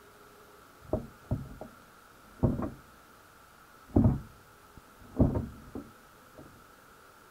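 About eight dull knocks and thumps at irregular intervals, heard underwater through a camera inside a wire crab pot, over a faint steady whine.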